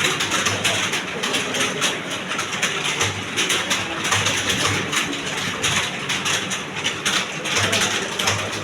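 Many computer keyboards clattering at once: a room of people typing fast in a typing test, a dense unbroken run of key clicks.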